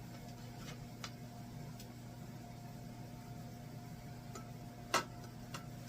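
Steady electric hum of a running kitchen appliance, with a few light clicks and a sharper knock of utensils or dishes about five seconds in.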